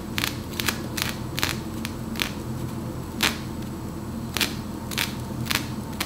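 Tweezers plucking hairs from a lace wig's hairline: a run of sharp, irregular clicks, about two or three a second, one louder click a little past the middle, over a steady low hum.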